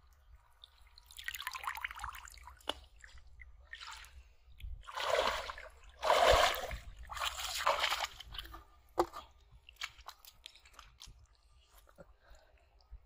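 Shallow river water splashing and sloshing as a person wades and moves his hands through it, in several irregular bursts, the loudest about six seconds in, with a few small clicks and drips after.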